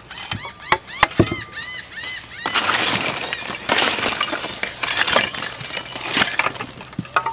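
Clay barrel roof tiles knocking, clattering and scraping against one another for several seconds, with sharp clicks from tiles being set down at the start. A short run of high repeated chirps is heard early on.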